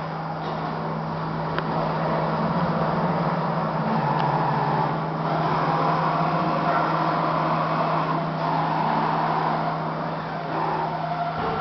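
Five-axis CNC router running as it engraves foam: a steady low hum under a whirring, hissing cutting noise that swells and eases as the tool moves.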